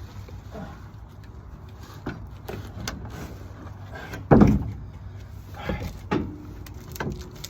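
Knocks and bumps of a plywood subfloor board being worked into place on a van floor, with one heavy thud about four and a half seconds in and several lighter knocks around it.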